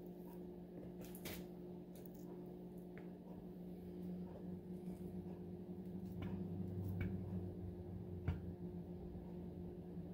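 Steady low hum with a few soft clicks and taps of a knife slicing a banana into a dish, the sharpest click about eight seconds in.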